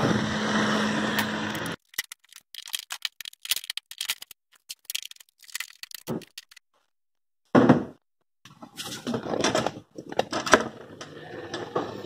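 A steady hum that cuts off suddenly, then clicks and scrapes of a hand screwdriver backing screws out of a dishwasher door's stainless inner panel, with one louder knock a little past halfway.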